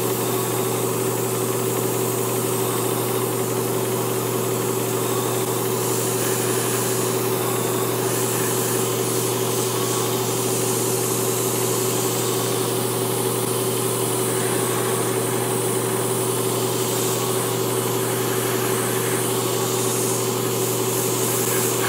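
Small airbrush compressor's electric motor running with a steady hum, under the hiss of air and paint spraying from a gravity-feed airbrush at about 25 PSI. The hiss swells and fades while the motor hum stays even.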